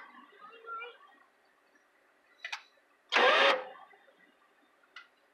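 A click, then a brief burst of starter cranking on a 1966 Lincoln's V8, lasting about half a second, about three seconds in, without the engine catching. Another short click comes near the end.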